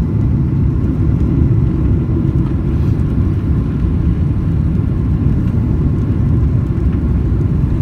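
Steady low rumble of a jet airliner's cabin on landing approach with the flaps extended.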